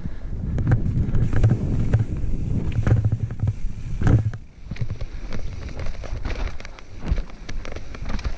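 Santa Cruz Nomad full-suspension mountain bike rolling fast down a rough dirt singletrack: tyres rumbling over dirt, roots and rocks, with frequent sharp knocks and rattles from the bike and wind on the microphone. The rumble is heavier in the first half and dips briefly about halfway through.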